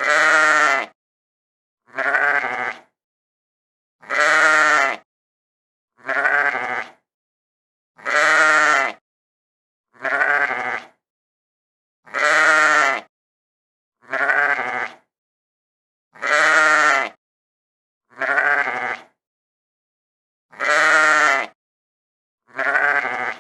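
Sheep bleating: a wavering baa of about a second, repeated roughly every two seconds, twelve calls in all, with two slightly different bleats taking turns.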